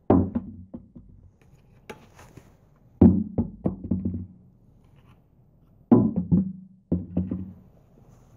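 Groups of three to five quick hollow knocks, each group followed by a short low ring, coming about every three seconds.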